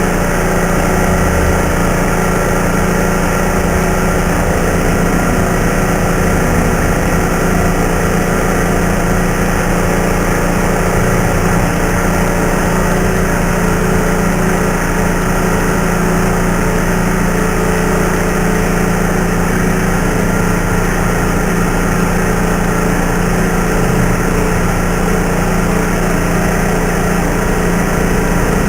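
Stick-welding arc crackling and sizzling steadily as the electrode burns, over a steady machine hum.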